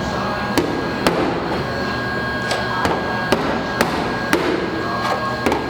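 A hammer striking sheet metal on a car body, about ten sharp, irregularly spaced knocks over a steady background hum.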